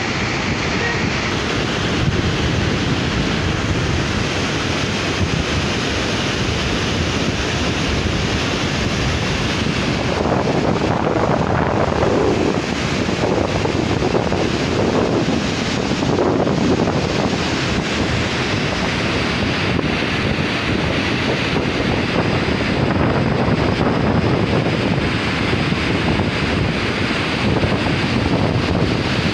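Floodwater discharging through a dam's open spillway gates: a steady, loud rush of water and spray, a little heavier about halfway through, with wind buffeting the microphone.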